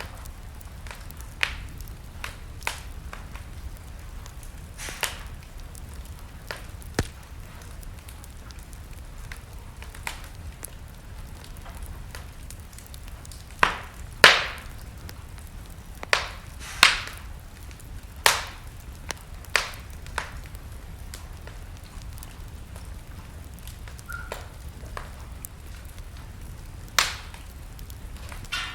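Wood fire burning in a fireplace, crackling with sharp, irregular pops every second or two over a low steady rumble; the loudest pops come about halfway through.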